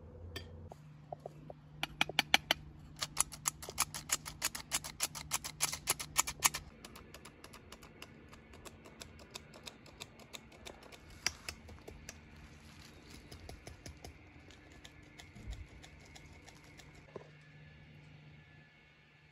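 A metal spoon stirring in a small glass, clinking rapidly against the sides, about three or four clinks a second for several seconds, then fainter scattered clicks.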